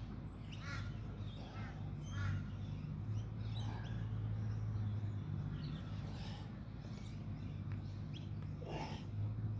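Crows cawing repeatedly, a call every second or two, over a steady low hum.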